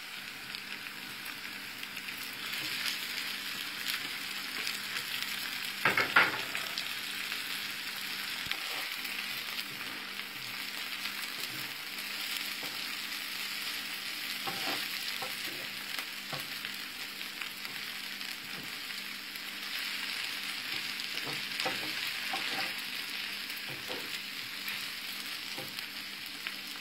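Onions, garlic and boiled thorn-tip shoots sizzling in butter and oil in a nonstick frying pan, stirred with a wooden spoon that scrapes and taps against the pan. A louder knock comes about six seconds in.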